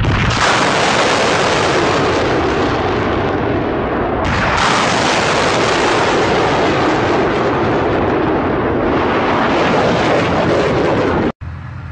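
Salvo of rockets launching from a multiple rocket launcher. The rocket motors give a loud, continuous rushing noise that runs on for about eleven seconds and cuts off abruptly near the end, leaving a quieter noise.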